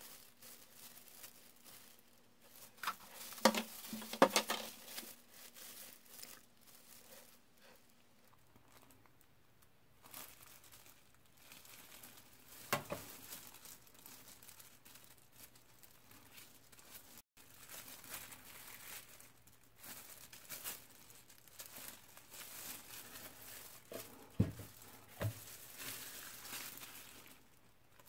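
Thin plastic disposable gloves and a clear plastic soap mold crinkling as hands turn bars of soap, with a few sharp clicks and taps: a cluster about three to four seconds in, one near the middle and two close together near the end.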